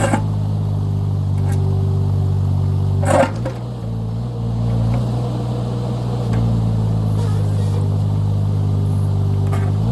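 Engine of a 2-ton mini excavator running steadily while it digs. There is a sharp clank right at the start and another about three seconds in, each followed by a brief dip in the engine note.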